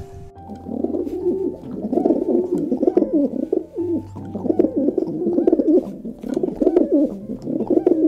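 Doves cooing: a low, rolling, purring call repeated in long phrases from about a second in, over soft background music.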